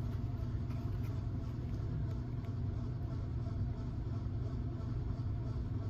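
Steady low hum and rumble of a running laundry machine, with a few faint ticks.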